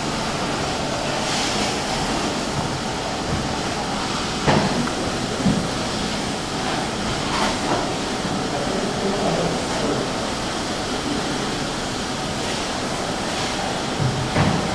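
Steady rushing noise of ocean surf and wind, with a few brief low bumps: two about four and a half and five and a half seconds in, and one near the end.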